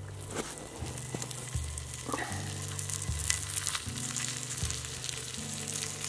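Sliced ham frying in a pan over a campfire: a steady sizzle with small crackles.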